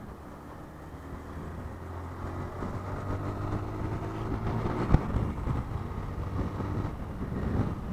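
Vehicle engine running on the move, its pitch rising as it speeds up a few seconds in, with road noise and a sharp knock about five seconds in.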